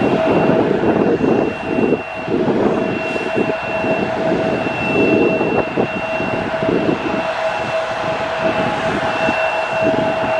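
Jet airliner engines whining with two steady pitches, under heavy, gusty rumble from strong wind buffeting the microphone.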